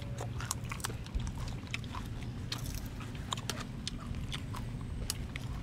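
A person chewing crisp dried fish with the mouth close by: a run of irregular small crunches and clicks, over a steady low hum.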